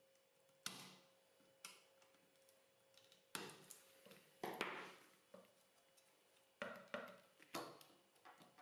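Irregular light clicks and taps of 3D-printed plastic frame parts and small screws being handled and fitted together by hand, about seven in all, over a faint steady hum.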